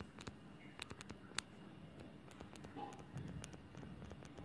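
Faint scattered clicks and taps of a stylus writing on a tablet screen, with one sharper tap about a second and a half in.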